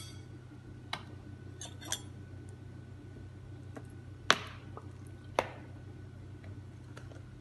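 A metal spoon and a sauce bottle clinking against a ceramic bowl: a few short, sharp clinks, the loudest a little past the middle, over a steady low hum.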